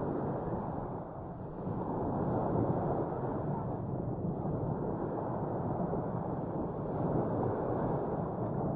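A steady rushing noise of wind buffeting the microphone, mixed with surf on the beach. It swells slightly about two seconds in.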